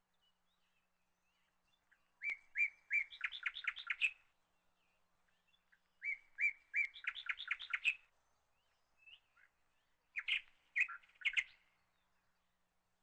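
A bird singing three short phrases a few seconds apart, each a few separate clear notes running into a quick string of rapid notes.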